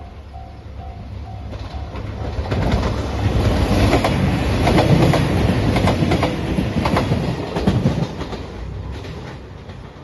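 Level crossing bell dinging in an even pulse, soon covered by a three-car JR Shikoku 2700 series diesel limited express passing close at speed, its wheels clicking over the rail joints. The train is loudest about halfway through and fades near the end.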